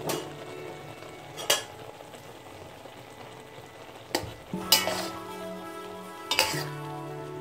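A wok of spinach, tomatoes and green chillies, cooked through, simmering with a steady sizzle while a metal spatula stirs it. The spatula clatters against the pan about four times, the first about a second and a half in.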